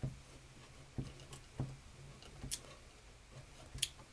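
A small screw being started and turned into the metal radio case with a nut driver: scattered light clicks and taps of the tool and screw, about six in all.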